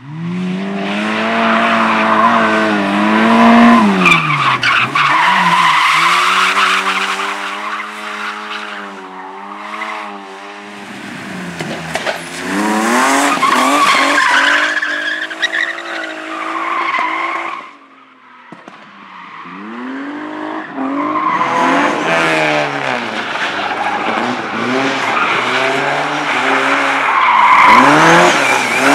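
Competition cars driven hard, engines revving up and down through gear changes with tyres squealing and skidding. The sound dies away about two-thirds of the way in, then another car's engine builds up again.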